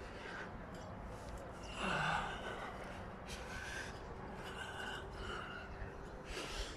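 A man breathing as he climbs an outdoor steel ladder high on a building, with one louder breath about two seconds in.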